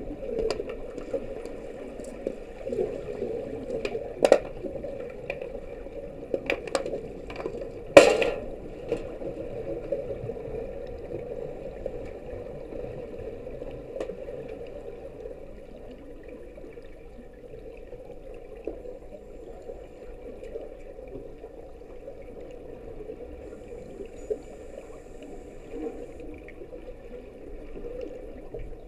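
Underwater hockey heard through the water from the pool floor: a steady underwater background noise with sharp clacks of sticks and puck striking the tiles, several in the first eight seconds, the loudest about eight seconds in, then only the odd one.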